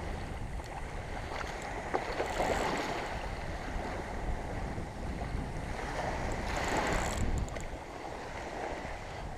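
Small surf waves washing up a sandy beach, the wash rising twice, with wind buffeting the microphone.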